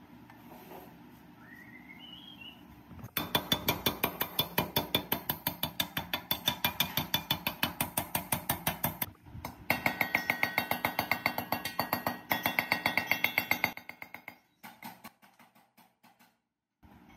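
Rapid, evenly spaced light hammer taps on a dented aluminium electric-motor fan cover held against a steel rail, beating the dents out, with a metallic ring to each tap. Two long runs of several taps a second with a short break between, then a few single taps near the end.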